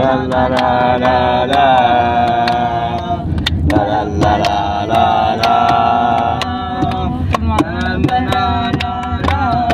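A woman singing long, wavering held notes that glide between pitches, with no clear words, over a steady low rumble and frequent sharp taps.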